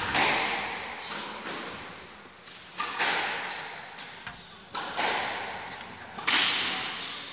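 Squash ball struck by rackets and hitting the court walls during a rally, sharp cracks every second or so that echo in the enclosed court, with short high squeaks of court shoes on the floor between strikes.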